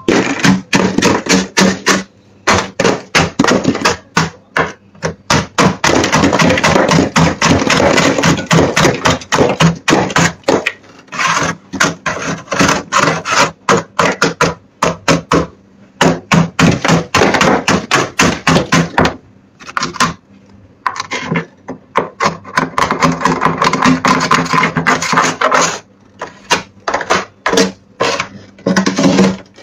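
Thick freezer frost being scraped off the walls of a chest freezer by hand: rapid, repeated rasping scrapes, several a second, broken by a few short pauses.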